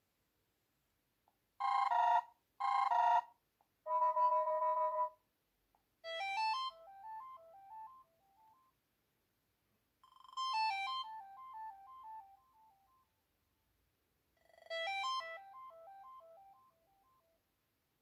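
Ringtone previews playing from a Wileyfox Swift 2 Plus phone's speaker as ringtones are picked one after another from its list. First come three short electronic chimes, then three brief melodies of quick stepping note runs, each cut off after a few seconds with silence between.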